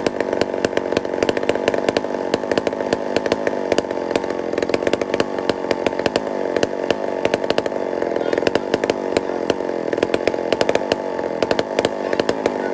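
McCulloch 797 big-bore two-stroke chainsaw running steadily at a fast, even firing rate without revving up or down. It is loud enough to be felt in the chest.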